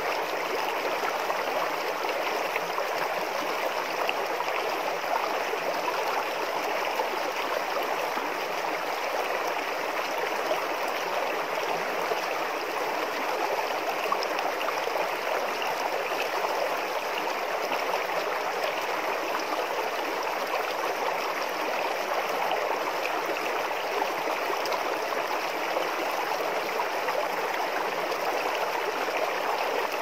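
Shallow rocky river at low dry-season flow, its water running over and between large boulders in small cascades: a steady, even babbling rush.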